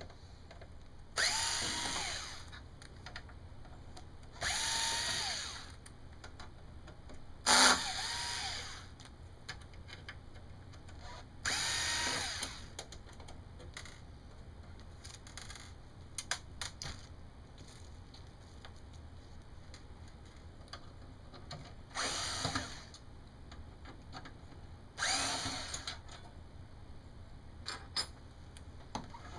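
Power screwdriver backing out the case screws of a bench power supply: six short runs, each spinning up and winding down, with light clicks of screws and the driver between them.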